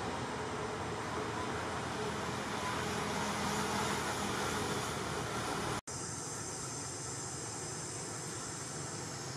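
Steady outdoor background hiss with no distinct event, cut by a brief dropout about six seconds in; after it, insects drone high and steady.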